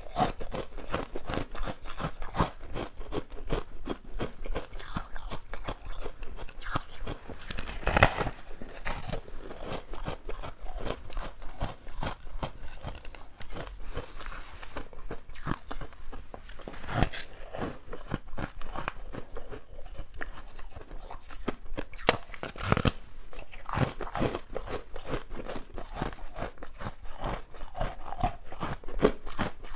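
Crunching and chewing of a basil-seed ice block, with dense crackling bites throughout and louder crunches about eight, seventeen and twenty-three seconds in.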